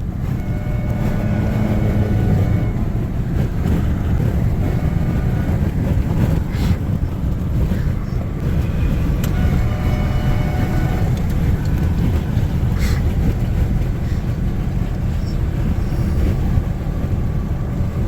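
Steady low rumble of road and engine noise inside a moving vehicle at highway speed, with faint held tones twice, about half a second in and near the middle.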